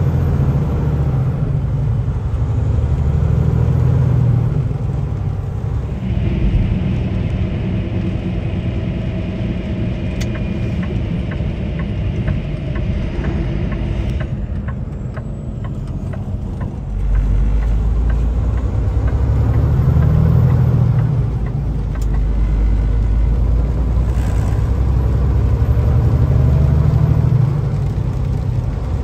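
Semi truck's engine and road noise heard from inside the cab on a wet road: a low, steady rumble that changes abruptly in character a few times.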